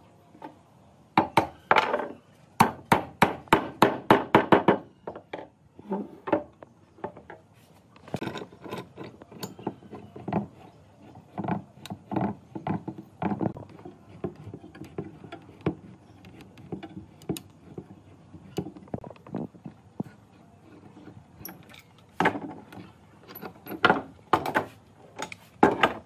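Knocks and strikes on wood from hand woodworking: a fast run of blows, about six a second, a couple of seconds in. Scattered knocks and scraping follow, then another cluster of strikes near the end.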